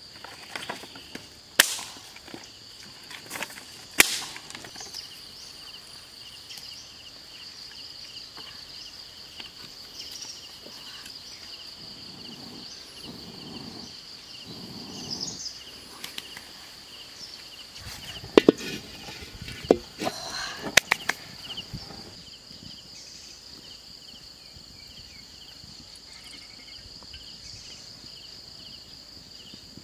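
Insects droning steadily in two high tones, with sharp knocks and snaps of dry sticks being laid and broken for a small wood fire. Around the middle comes a low breathy rush as the fire is blown on, and a burst of several sharp snaps follows.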